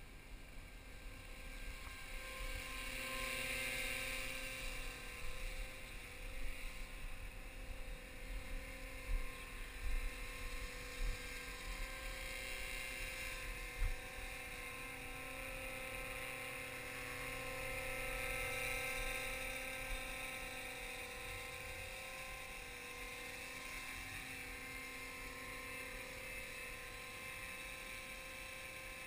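Align T-Rex 250 electric RC helicopter hovering, its motor and rotor making a steady whine that wavers slightly in pitch, with a few sharp low bumps in the first half.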